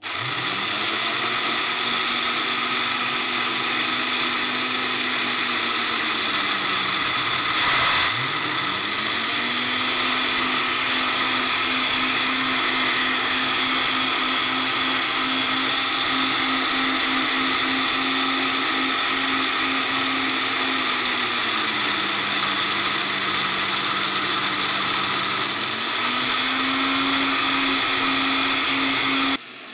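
Small rotary-tool motor (Ozito) spinning the blade of a miniature 3D-printed table saw, a steady high whine. Its pitch sags twice as the blade slows while cutting thin wood strips and then climbs back; about eight seconds in a sharp knock nearly stalls it before it spins up again, and it is switched off at the very end.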